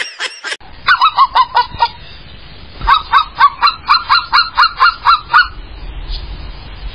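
A husky gives two runs of quick, repeated yipping calls, about five a second, each call dipping in pitch. A short run comes about a second in, and a longer one runs from about three to five and a half seconds.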